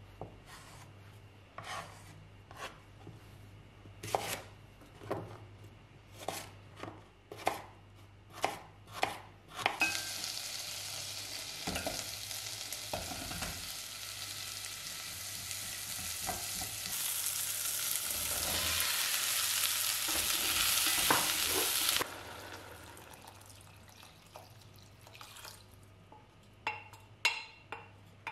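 Knife chopping shallots on a wooden chopping board, one stroke every half second or so. About ten seconds in, shallots hit the hot pot and sizzle, growing louder, until the sizzle cuts off suddenly; a few light clicks follow.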